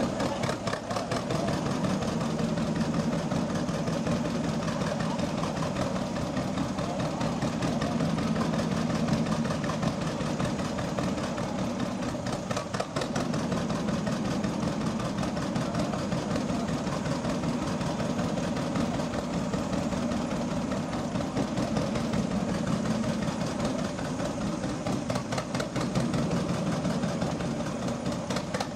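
Vintage John Deere tractor's two-cylinder engine running slowly with an even, rapid pulsing beat.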